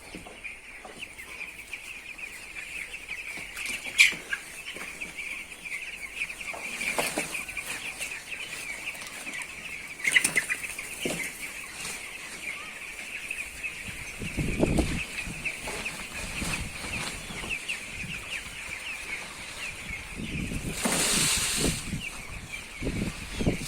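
A flock of chickens clucking and chattering without pause. A sharp knock comes about four seconds in and another about ten seconds in, with some bumping and rustling later on.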